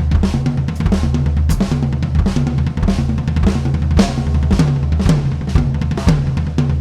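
Sampled acoustic drum kit from Addictive Drums 2, played live from an EF Note 5 electronic kit: a steady groove of kick, snare, hi-hat and cymbal hits with fills. A bass line runs underneath the drums.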